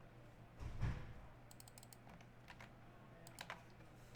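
A soft thump about a second in, then scattered light clicks at an uneven pace, including a quick run of several clicks.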